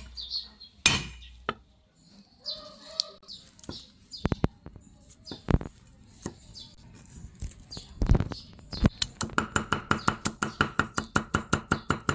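Heavy cleaver striking a wooden chopping board: a few scattered knocks as garlic cloves are crushed under the blade, then, about nine seconds in, fast even chopping, about six strokes a second, as the garlic is minced.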